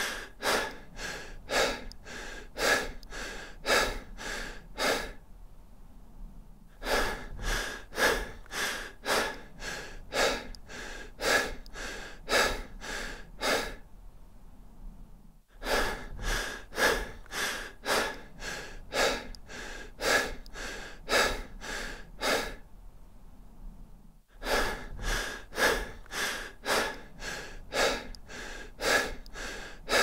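A person breathing deep and fast: quick, evenly spaced breaths, about two to three a second, in runs of several seconds broken by three short pauses of about two seconds.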